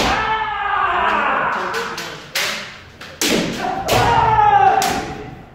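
Kendo sparring: two long drawn-out kiai shouts, broken by several sharp cracks of bamboo shinai strikes and stamping feet.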